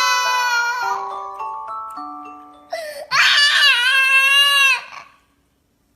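A baby crying in two long wails, the second starting about three seconds in, over a glockenspiel-like chiming melody that stops just before it. Everything cuts off about five seconds in.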